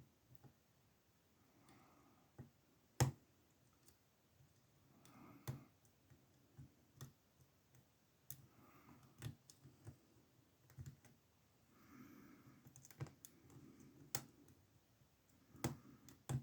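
Lock pick and tension wrench working the pins inside a SIL 30 mm padlock's brass keyway, making faint, irregular metallic clicks, the loudest about three seconds in.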